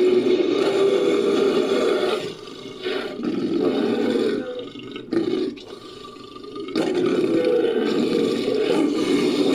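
Creature sound effect for a fictional pterosaur, made from mixed monster and animal roars: a long rough roar, then shorter, quieter growls with a sharp cry about five seconds in, then another long roar near the end.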